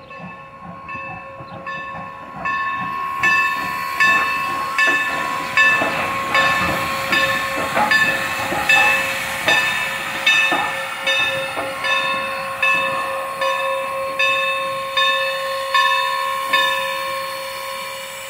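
Norfolk & Western #475 steam locomotive's bell ringing steadily, a little more than one stroke a second, growing louder about two seconds in as the engine moves past and fading near the end. Steam hisses beneath it, with a few chuffs in the middle.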